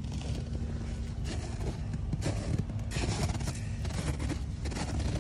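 Footsteps crunching on snowy gravel with handling rustle, short irregular crunches several times a second, over a steady low rumble with a constant hum.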